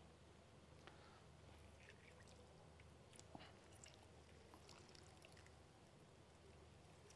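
Near silence: a lemon half being squeezed by hand into a small bowl, heard only as faint wet squishes and scattered small ticks over a low room hum.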